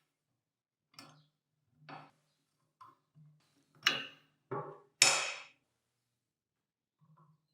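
Metal knocks and clanks from handling the antique potato slicer's rusty metal parts: a string of separate hits, the loudest about four and five seconds in, the last ringing briefly.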